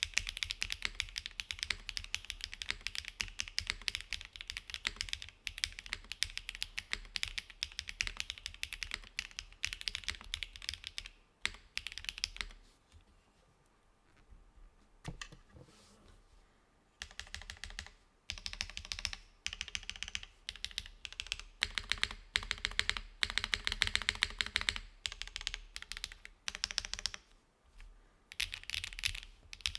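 Fast typing on a gasket-mounted custom mechanical keyboard with Cera switches, GMK Cyrillic Beige keycaps and a full aluminium plate with no foam: a dense run of key clicks. The typing stops for about four seconds in the middle, broken by a single click, then starts again.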